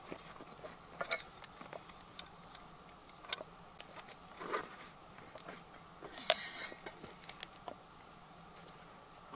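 Gear being rummaged in a canvas bag: scattered light clicks, knocks and rustles, with one sharp metallic clink about six seconds in as a stainless steel bottle comes out.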